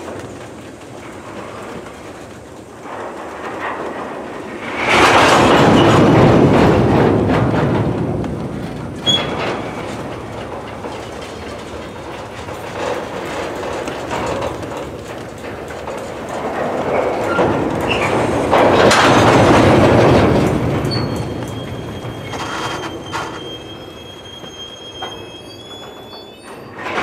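Covered hopper cars of a potash train rolling slowly past as the train brakes to a stop, steel wheels rumbling and clacking over the rails, swelling loudly twice. Near the end, thin high-pitched squeals from the steel wheels as the train slows.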